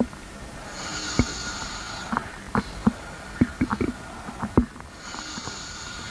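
Stomach gurgling recorded close up: a string of short, irregular pops and squelches, with a hissing sound rising twice, about a second in and again near the end.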